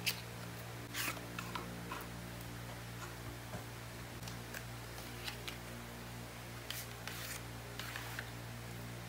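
Cardboard cosmetic boxes being handled and opened by hand: a string of light scrapes, taps and paper rustles as a bottle and a palette come out of their boxes, over a steady low hum.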